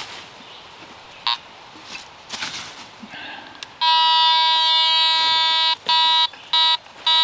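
Fisher F19 metal detector sounding its target tone, signalling buried metal. The tone starts loud and steady about four seconds in, holds for about two seconds, then breaks into short repeated beeps as the coil passes back and forth over the target.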